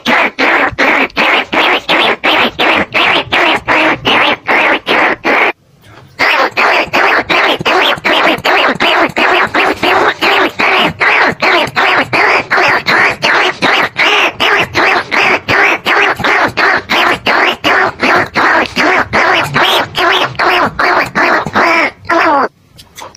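Recorded rat lure call, a rapid unbroken series of short, evenly spaced rat squeaks played on a loop to draw in bandicoot rats and rice-field rats. It breaks off briefly about five seconds in and again near the end.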